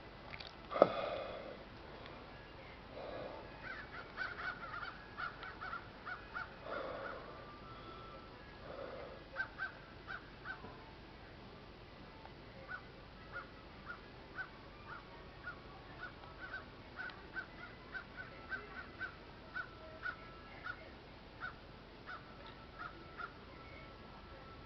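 Crows cawing a few times, followed by a long run of short high call notes from birds, with a sharp click about a second in.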